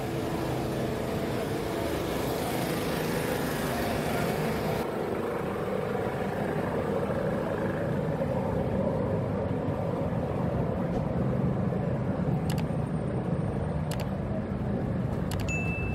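Busy city-street ambience: steady traffic noise from passing cars and minibuses. A few light clicks come near the end.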